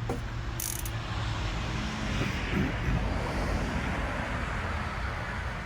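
A vehicle passing by outdoors: a broad rushing noise over a low rumble that swells through the middle and fades toward the end.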